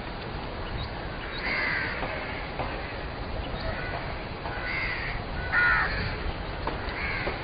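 Crows cawing: about four harsh calls spaced a second or more apart, the loudest about five and a half seconds in, over steady outdoor background noise.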